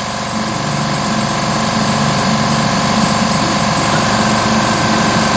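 Steady mechanical hum of a workshop air compressor running alongside the desktop CNC mill, with a new high steady whine starting about four seconds in.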